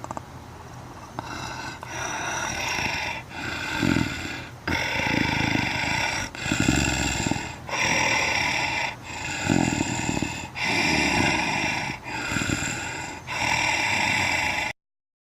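Predator creature sound effect: a series of about nine guttural growls, each a second or so long with short breaks between them, cutting off suddenly near the end.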